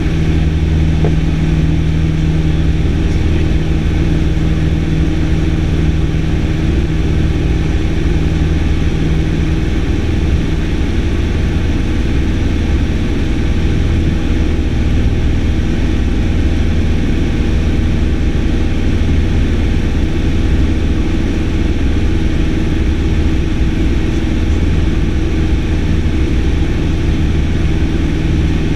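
Piston engine and propeller of a single-engine light aircraft in cruise, heard inside the cabin as a loud, steady drone. One of its notes drops away about ten seconds in.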